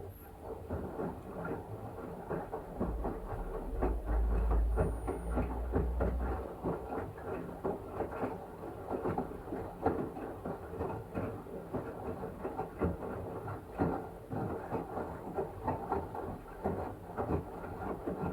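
LG washing machine drum turning mid-wash, the wet blanket tumbling and slapping with water sloshing, a dense run of irregular rapid knocks. It starts abruptly after a quiet pause, and a low rumble swells for a couple of seconds a few seconds in.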